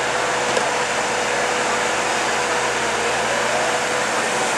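John Deere farm tractor's engine running hard under load while pulling a weight-transfer sled, a loud steady drone with a held whine that drops slightly near the end.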